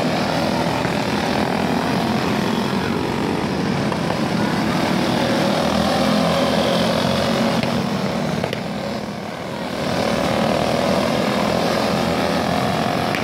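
A pack of kids' racing karts with small single-cylinder engines buzzing as they race past, several engine notes rising and falling over one another. The sound eases a little about nine seconds in, then builds again.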